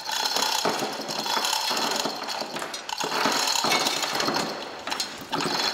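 Hand chain hoist being pulled hand over hand, its steel chain clinking and rattling without a break as it lowers a heavy cast-iron mill frame down over the roller shafts.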